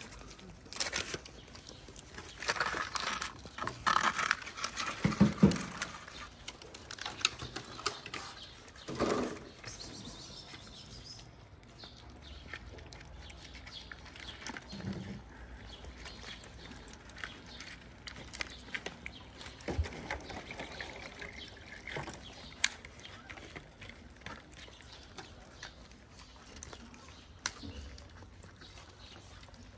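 Kittens eating wet food and dry kibble from plastic trays close up: irregular chewing, smacking and crunching with small clicks, busiest in the first several seconds and sparser after.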